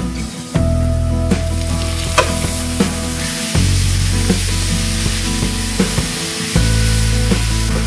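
Ground beef and chopped red onion sizzling as they fry in a nonstick wok. A wooden spoon stirs and scrapes them, with scattered knocks against the pan. The sizzle grows louder about a second and a half in, as the raw beef goes into the hot pan.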